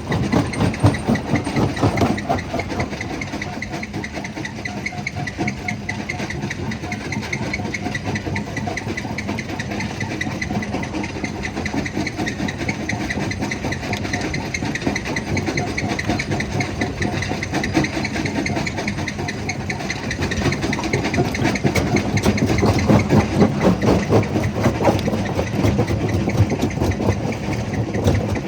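Jaw crusher running under load: a steady heavy mechanical rumble with a constant dense clatter, a little louder in the last few seconds.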